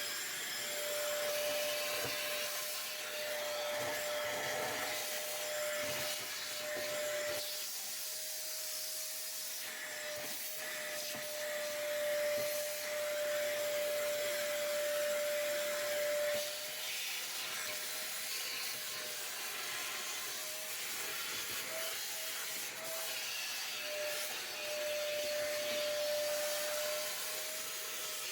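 Shop vac running steadily, set up for wet vacuuming with its filter out, sucking debris out of the bottom of a dishwasher: a steady high whine over rushing air, its pitch wavering slightly now and then.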